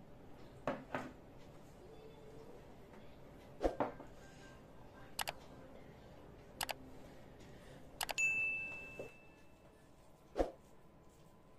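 Scattered clinks and soft knocks of white ceramic bowls and plates on a table as curry is served and eaten by hand. One clink, about eight seconds in, rings on briefly with a clear tone.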